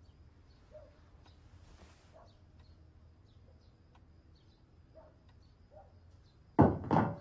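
Quiet with faint, scattered high chirps, then two loud strikes on a taiko drum near the end, about half a second apart.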